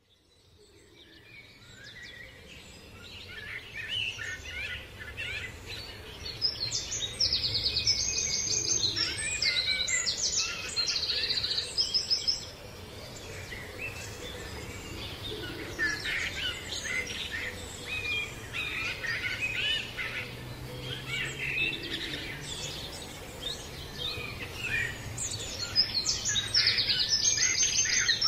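Several small songbirds singing and chirping at once, overlapping phrases with bursts of rapid high trills; the sound fades in at the start.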